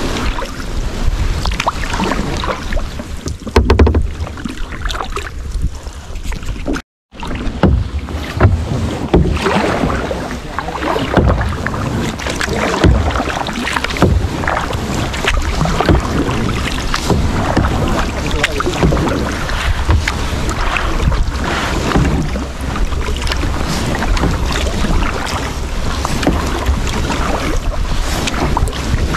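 Two people paddling a tandem sea kayak: double-bladed paddles dipping and splashing in calm water at an irregular rhythm, with wind buffeting the microphone. The sound drops out completely for a moment about seven seconds in.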